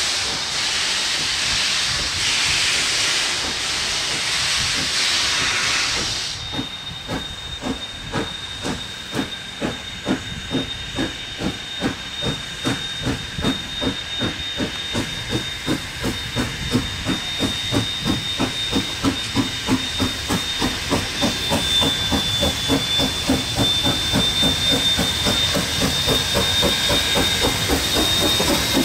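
Ja-class steam locomotive pulling away: a loud hiss of steam from the open cylinder drain cocks stops suddenly about six seconds in, then steady exhaust chuffs at about two a second grow louder as it comes closer.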